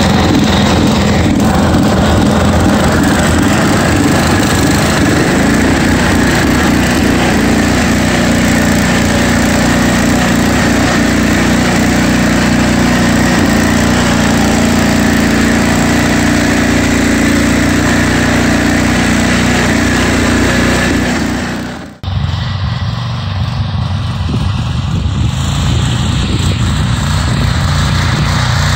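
Craftsman garden tractor's small gasoline engine running steadily as the tractor drives over snow. It is heard close up at first. About two-thirds of the way in the sound cuts off suddenly, and the engine carries on from farther away, slightly quieter.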